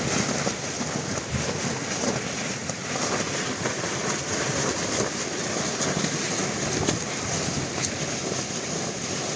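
Strong storm wind blowing hard and buffeting the microphone: a steady rushing noise.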